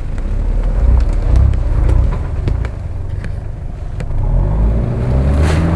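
Off-road 4x4's engine revving under load on a ravine slope, surging in the first two seconds, then rising steadily in pitch from about four seconds in, with a few sharp clicks.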